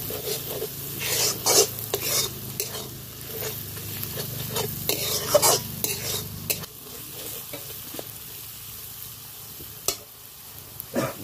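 Metal spatula scraping and stirring sizzling mutton masala in a large black wok, stroke after stroke. The stirring stops about six and a half seconds in, leaving a quieter sizzle, with a couple of sharp knocks near the end.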